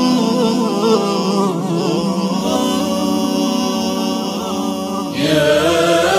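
Slow Arabic religious chant (nasheed) sung in long, wavering held notes. About five seconds in, a brighter, fuller phrase begins.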